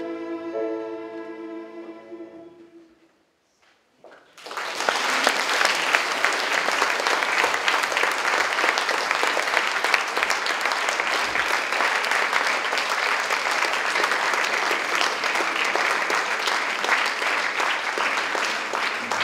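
A children's choir holds its final chord, which fades away about three seconds in. After a brief silence the audience breaks into steady, sustained applause.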